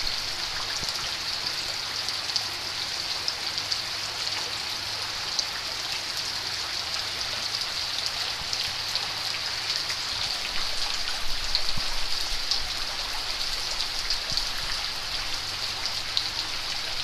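Heavy tropical downpour: a steady, dense hiss of rain on the ground and on standing water, with many close drop hits.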